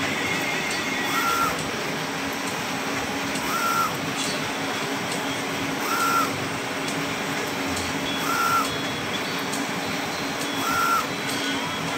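UV flatbed printer running: a steady hum and fan noise, with a short whine from the print carriage about every two and a half seconds as it sweeps across the bed, five times in all.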